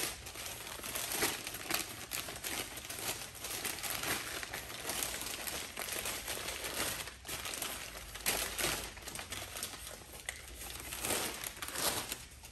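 Newspaper wrapping crumpling and rustling in irregular crackles as it is pulled off a camera by hand.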